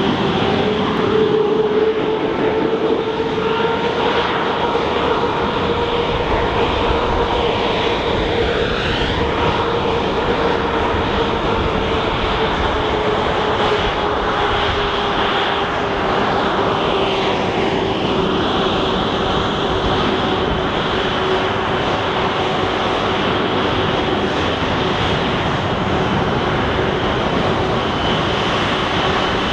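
Twin-engine jet airliner taxiing at low power: a steady engine rumble and hiss with a whine that sinks slowly in pitch, and a sweeping, hollow phasing in the tone as the aircraft moves.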